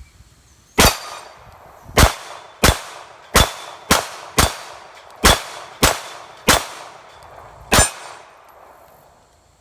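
A string of ten pistol shots from a Glock 23 Gen 4 firing 9mm through a Lone Wolf .40-to-9mm conversion barrel, unevenly spaced about half a second to a second apart, with a longer pause before the last shot. A faint metallic ring follows several shots, from hits on a steel target.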